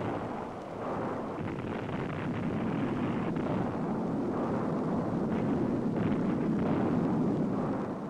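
Rock blasting in a canyon wall: a long, steady rumble of the explosion and falling rock debris, swelling slightly before fading near the end.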